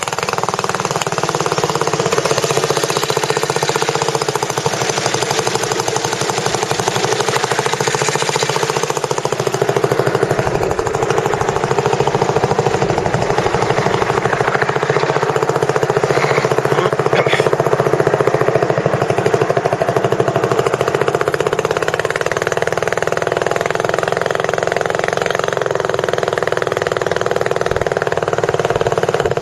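Tour boat's engine running loud and steady just after being started, with a rapid, even knocking beat.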